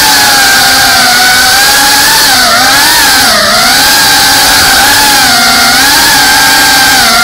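FPV drone's electric motors and propellers whining loudly, the pitch sagging and rising with the throttle, with two deeper dips a few seconds in.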